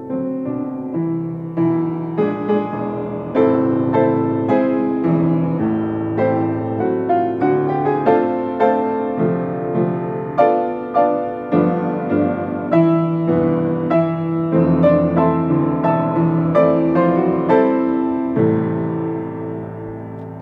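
Upright piano played solo: a steady run of struck chords and melody notes, ending in a held chord that fades away near the end.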